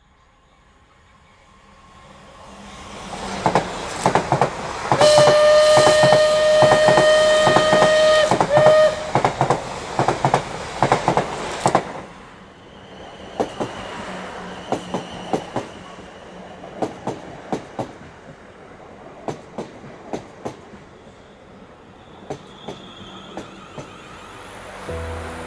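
A railway train rolling over rail joints with a steady clickety-clack, fading in at the start. About five seconds in it sounds one long horn note for about four seconds, then it runs on more quietly with the wheel clicks continuing.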